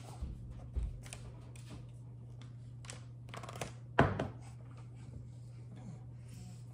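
Light clicks and taps of baking utensils and containers handled on a kitchen counter, with one sharp knock about four seconds in, over a steady low hum.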